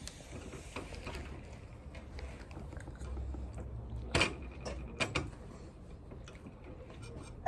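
A few short clicks and knocks from handling objects, the loudest about four seconds in and two more a second later, over a low room rumble.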